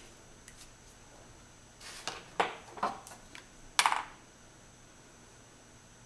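Clear plastic ruler and marker handled against a whiteboard: a few short clicks and taps from about two to four seconds in, the loudest near four seconds.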